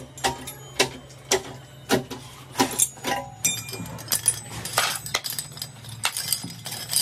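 Sharp metallic clinks and knocks, about two a second, over a low steady machine hum, typical of metal parts being handled in a workshop.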